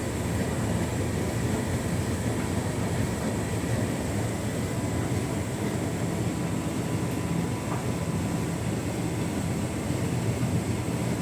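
Hotpoint Ultima S-line tumble dryer running on its Heat and Enjoy warming setting: a steady hum of the motor and fan blowing warm air as the drum keeps turning.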